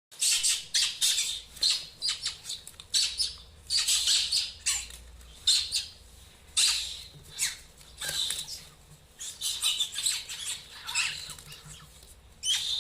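A pet bird squawking and chirping in a rapid string of short, shrill calls, some sliding down in pitch.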